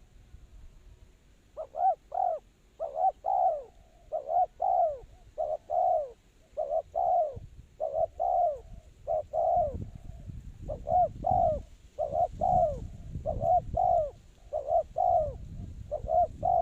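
Spotted doves cooing, a long run of short, low, arched coo notes that starts about a second and a half in and continues steadily. A low rumble joins under the calls in the second half.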